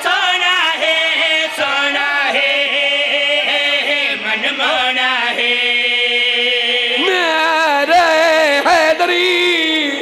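Men's voices chanting the refrain of a Punjabi devotional qaseeda in drawn-out, wavering notes, with one long held note near the middle.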